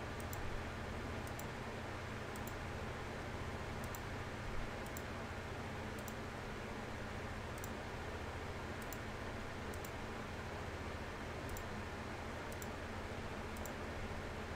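Faint computer mouse clicks, irregular and about once a second, as blend modes are picked one after another from a dropdown menu, over a steady low hum of room tone.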